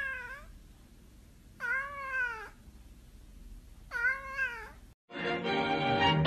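Orange tabby cat meowing three times, each a drawn-out call that rises and then falls in pitch, sounding like "mom" or "momma". Music starts about five seconds in.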